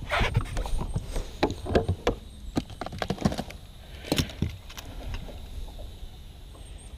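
Irregular knocks and clicks of handling in a boat as a freshly caught bass is put on a fish scale, busiest in the first few seconds and dying down after about five seconds.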